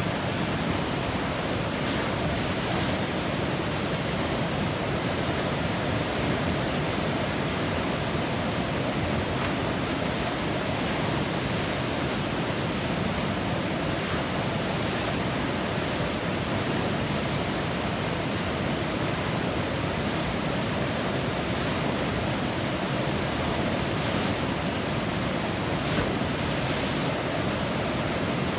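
Steady rushing of a whitewater river rapid: a constant, even wash of churning water with no let-up.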